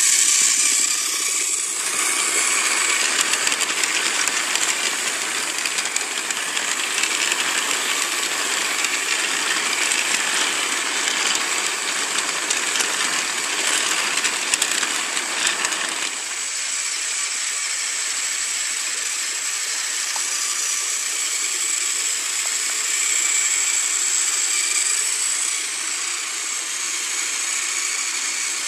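Battery-powered TrackMaster Gordon toy engine running with a steady high motor whine while it and its long train of plastic coaches rattle over the plastic track. The clicking rattle thins out about halfway through, leaving mostly the whine.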